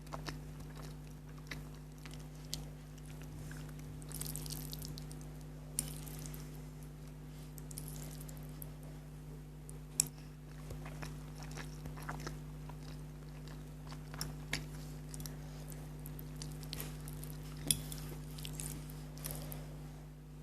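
Close-up eating sounds: chewing a mouthful of spicy noodles, with wet mouth noises, soft hissy intakes and a few sharp clicks now and then.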